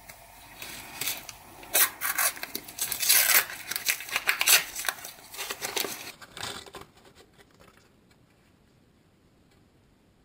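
A sticker packet's wrapper being torn open and crinkled by hand, in a string of loud, uneven crackling rips that stop about seven seconds in.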